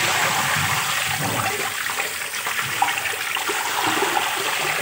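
Water pouring and splashing steadily onto a soapy tiled floor and into a floor drain, rinsing away the suds.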